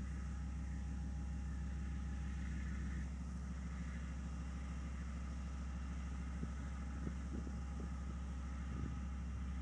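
KiwiRail diesel locomotive approaching from a distance, its engine a steady low drone. Some wind buffets the microphone in the last few seconds.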